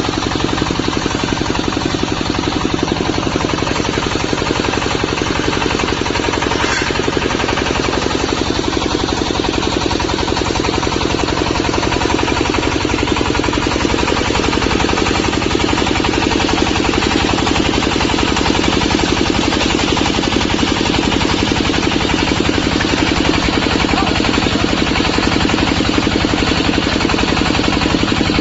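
Diesel engine of a portable water well drilling rig running steadily with a fast, even firing beat.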